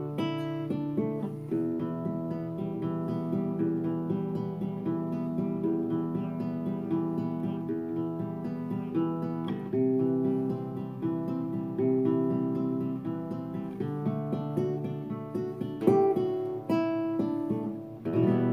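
Background music: acoustic guitar playing, plucked and strummed chords.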